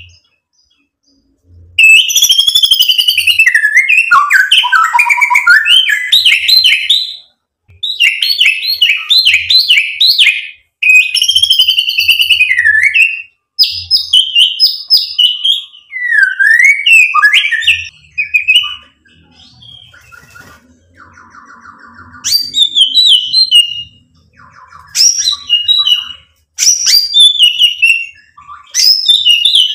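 White-rumped shama (murai batu) singing loud, varied phrases of sweeping whistles and fast repeated notes, in bursts of a second or few with short gaps. A quieter, dry, evenly repeated rattle comes about two-thirds of the way in, before the whistled phrases resume.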